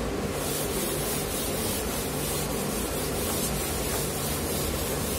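Whiteboard eraser wiping a whiteboard clean, a steady dry rubbing hiss.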